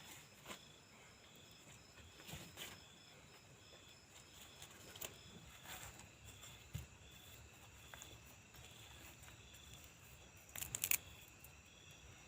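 Crickets chirping in steady high pulses, with scattered faint knocks and a short louder clatter near the end.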